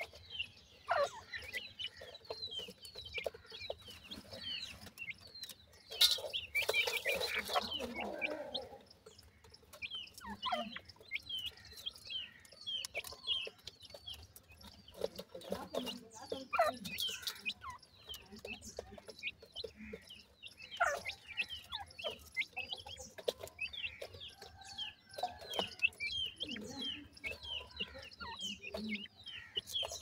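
Three-month-old francolin chicks calling with many short, high, falling chirps and soft clucks all the way through while they peck at dry soil, with scattered light taps and scratches. About six seconds in comes a louder, noisy rustle lasting roughly two seconds.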